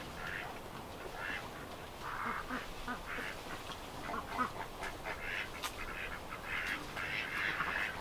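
Ducks quacking, many short calls in quick succession that grow busier toward the end.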